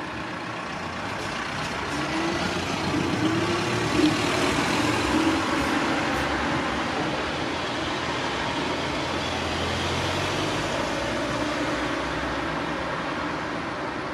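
Night road traffic: a motor vehicle passes, its engine swelling to loudest about two to six seconds in, then settling into a steady traffic rumble.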